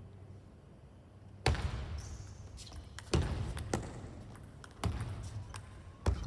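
Table tennis rally: the ball struck by the rackets and bouncing on the table, a sharp click about every second, starting about a second and a half in, echoing in a large sports hall.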